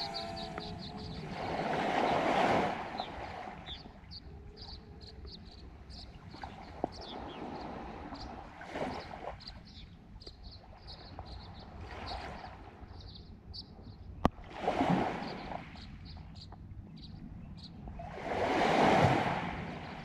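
Small lake waves washing onto the shore, each one swelling and fading over about a second, five times. Between them a faint high chirp repeats about twice a second, and one sharp click comes about two-thirds of the way through.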